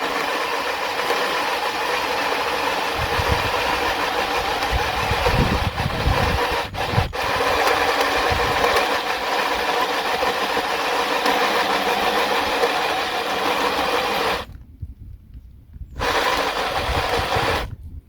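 A drill with a locating mandrel cutting a hole into a thin aluminium plate: a steady motor whine with the rasp of the cut. It stops about three-quarters of the way through, runs again briefly and stops near the end.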